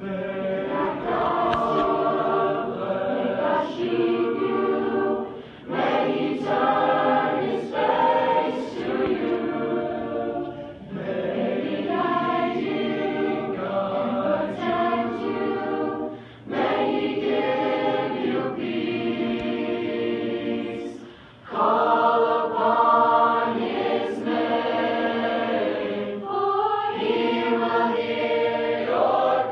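Mixed youth choir singing an unaccompanied blessing in harmony, in phrases of about five seconds with brief pauses for breath between them.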